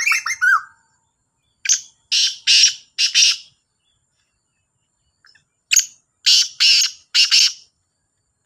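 Black francolin calling: two harsh, grating phrases of four notes each, about four seconds apart. In the first second, another bird's quick run of short, repeated whistled notes trails off.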